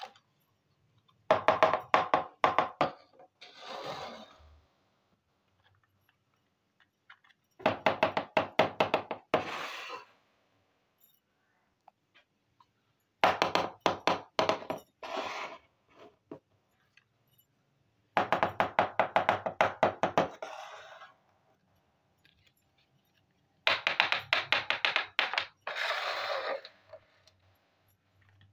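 Small plastic toy kitchen pieces clicking and clattering in quick runs of taps: five bursts of two to three seconds each, one piece at a time being handled and set down on the floor, with quiet between.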